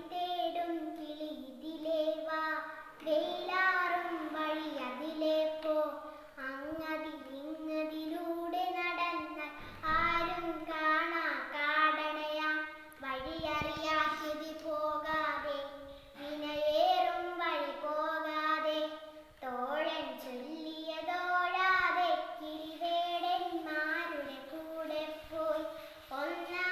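A young girl chanting a Malayalam poem unaccompanied in a melodic, sung style, holding notes through each line with short breaths between lines.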